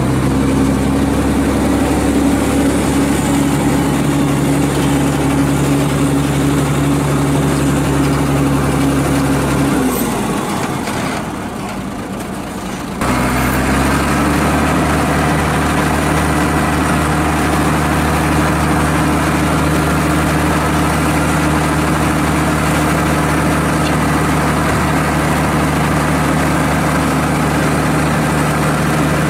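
Three-axle dump truck's diesel engine running steadily. Around the middle it fades for a few seconds, then comes back abruptly at slightly higher, steady revs as the hydraulic hoist raises the loaded tipper bed to dump the sand.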